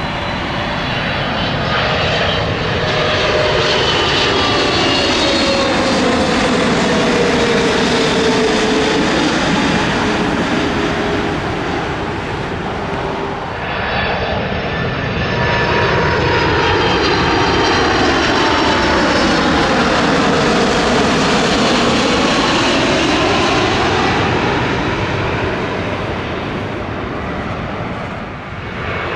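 Jet airliners passing close by, the engine noise swelling and fading with a falling whine; about halfway through, a second passing plane takes over with its own swell of engine noise.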